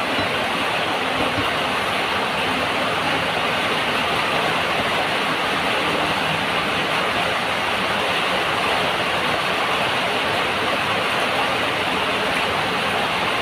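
Heavy rain pouring down, a steady, even, noisy hiss with no let-up.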